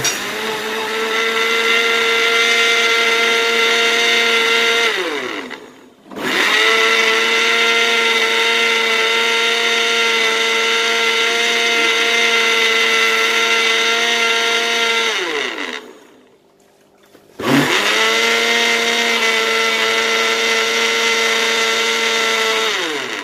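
Electric countertop blender running in three bursts, about five, nine and five seconds long, blending raw eggs with liquids into a smooth mix. Each time, the motor whine rises quickly to speed and then winds down with a falling pitch as it is switched off.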